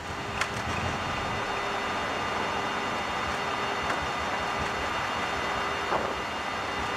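Steady flight-deck noise of a Boeing 767-300ER at about the moment of landing: airflow and engine sound with a steady whine and a few faint clicks.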